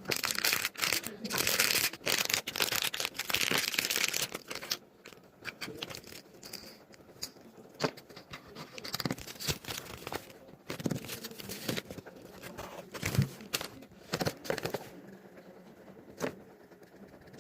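Chocolate packaging being torn open and crinkled: about five seconds of dense tearing and rustling, then scattered crackles and clicks as it is handled.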